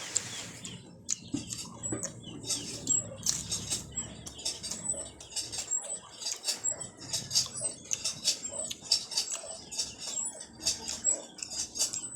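Close-up mukbang eating sounds: chewing and lip-smacking on raw clams in vinegar with rice, a steady run of quick, irregular wet clicks and smacks.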